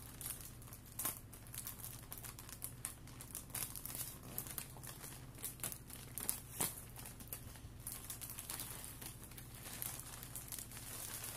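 Parcel packaging crinkling and rustling as it is opened by hand, an irregular crackle with a few sharper clicks.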